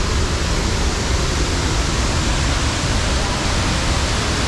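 Steady loud rush of a large waterfall running high with rainwater, a continuous roar with a deep rumble and no break.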